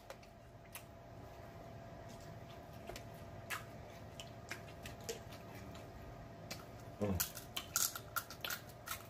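Snow crab leg shells being cracked and picked apart by hand: scattered small clicks and snaps, then a quick run of sharp cracks about seven seconds in.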